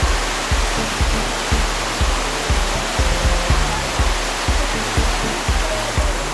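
Waterfall water rushing and splashing, with music playing through it: a steady bass-heavy beat about twice a second.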